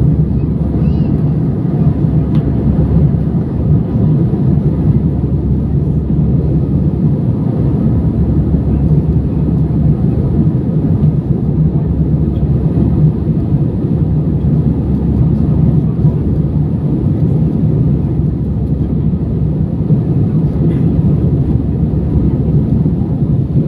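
Steady low drone of an airliner's engines and rushing air, heard inside the cabin in flight.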